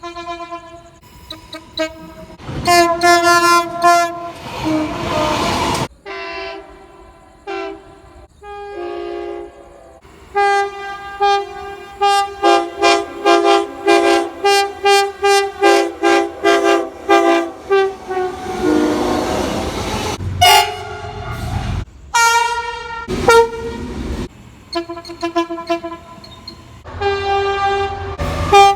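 Train air horns sounding in a string of short clips that cut abruptly from one to the next: multi-note chords in long and short blasts, with a long run of short toots, about two a second, through the middle. Between horns comes the rushing noise of passing trains.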